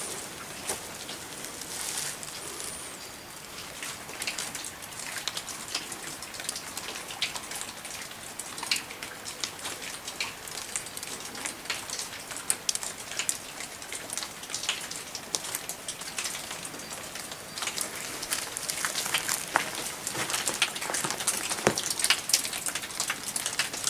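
Light rain pattering on forest leaves: many small irregular ticks over a soft steady hiss, growing denser near the end.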